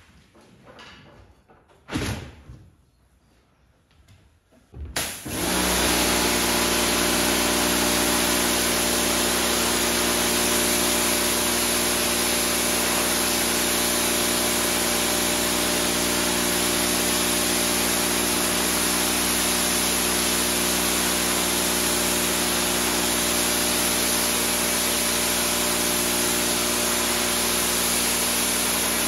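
A brief thump about two seconds in. Then, about five seconds in, a pressure washer starts and runs steadily: the hiss of its water jet spraying a soapy rug over the steady hum of its motor and pump.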